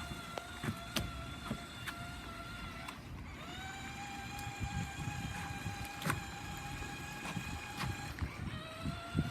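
Small electric motor of an RC truck whining steadily. It cuts out twice, about three seconds in and again near the end, and each time comes back with a short rise in pitch. A few sharp clicks and a rough low rumble run underneath.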